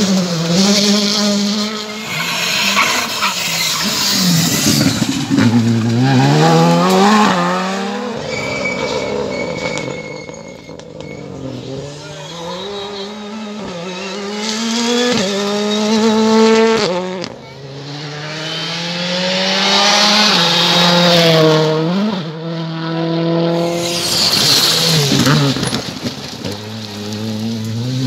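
R5 rally cars passing flat out one after another, their 1.6-litre turbocharged four-cylinder engines revving hard. The pitch climbs through each gear and drops sharply at every shift and lift-off, and the sound swells and fades several times as cars go by.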